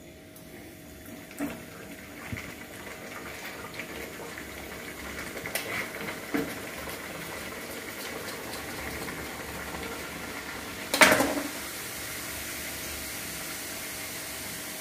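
Besan fafda strips deep-frying in hot oil in an iron kadhai: a steady sizzle and bubbling that builds over the first few seconds after a fresh strip goes in. A few short metal knocks from the skimmer and pan, the loudest about eleven seconds in.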